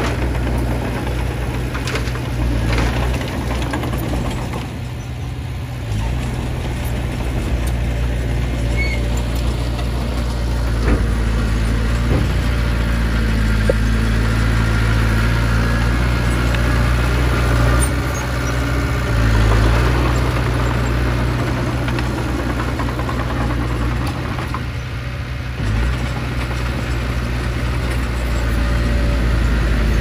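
Diesel engines running steadily with a deep drone: a dump truck tipping a load of soil, then a small crawler bulldozer pushing dirt.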